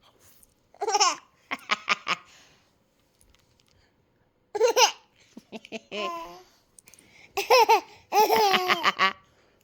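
A baby laughing and babbling in several separate bursts, with the longest run of laughter near the end.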